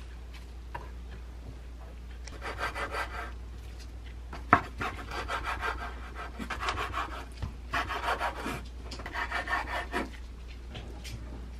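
Chef's knife sawing back and forth through a seaweed-wrapped gimbap roll on a wooden cutting board: about four short bursts of crisp rasping as the dried laver sheet is cut, one per slice, with a sharp knock of the blade on the board about 4.5 seconds in.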